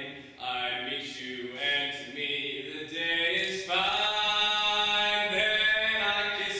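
A man's solo voice singing unaccompanied: a few short phrases, then a long held note for roughly the last three seconds.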